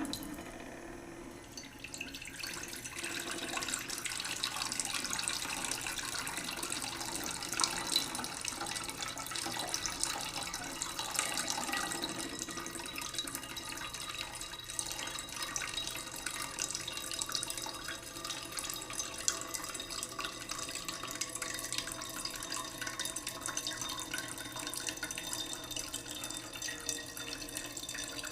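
Tap water running into a cooking pot as it fills: the stream builds over the first couple of seconds, then runs steadily.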